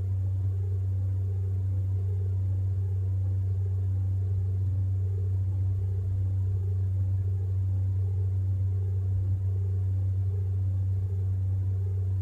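A steady low hum at a constant level, with a fainter, slowly pulsing tone above it and no breaks or sudden sounds.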